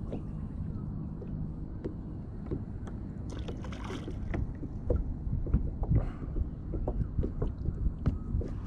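Water slapping against a plastic fishing kayak's hull with wind on the microphone, a steady low rumble, broken by scattered small clicks and knocks. A short hissing splash comes about three and a half seconds in.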